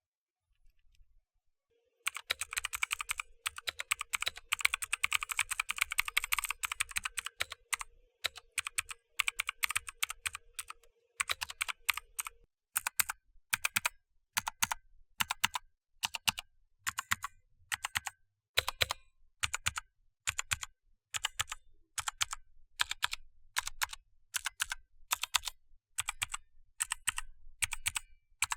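Mechanical keyboard with Kailh Blue clicky switches being typed on: a fast flurry of keystrokes for about ten seconds, then single keys pressed one after another at a steady pace, each a sharp click.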